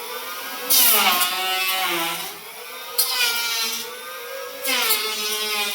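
Electric hand planer running and cutting wood in three passes. Each pass brings a surge of rushing cutting noise while the motor's whine sags in pitch under load and then climbs back as the cut eases.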